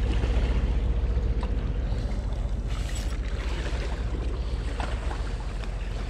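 Steady wind rumble on the microphone, with river water lapping at the rocky bank.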